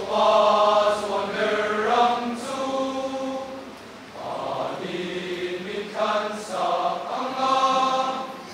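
Large mixed choir of young women and men singing in parts, holding sustained chords under a conductor, with a short break for breath about four seconds in.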